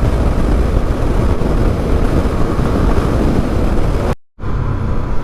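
Honda Twister 250 cc single-cylinder motorcycle riding on the road, its engine running under heavy wind noise on the microphone. The sound cuts out completely for a moment about four seconds in, then resumes.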